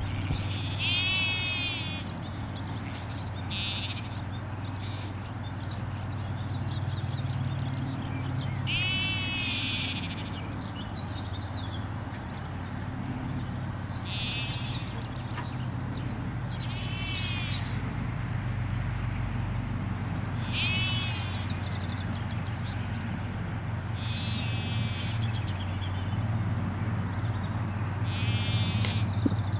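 Lambs bleating: short, high calls every few seconds, about eight in all, over a steady low hum.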